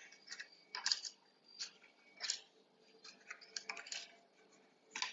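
Paper cupcake liners rustling and crinkling as they are peeled one at a time off a stack and set into a metal muffin tin: a faint string of short, scratchy crinkles.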